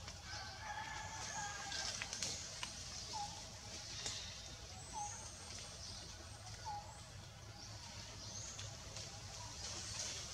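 Outdoor forest sound with birds calling: a short low call repeated every second or two, and thin high chirps above it, over a low steady rumble.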